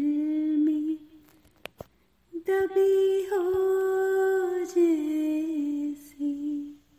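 A woman's voice singing unaccompanied without words, humming long held notes at the close of the song: one note dies away about a second in, and after a short pause a second long note sets in, glides down in pitch in steps and stops just before the end.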